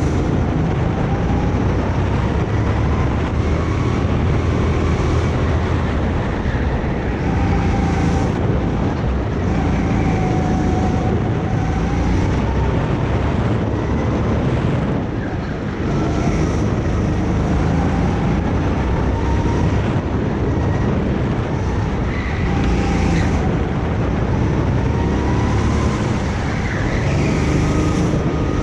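Kart engine running hard under load. Its pitch climbs and drops back again and again, every few seconds, as the kart laps the track.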